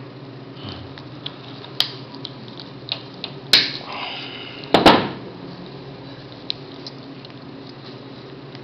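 A few sharp clicks and taps of small metal hand tools working the wire arms of an orthodontic expansion screw, the loudest about two, three and a half and five seconds in, over a steady low hum.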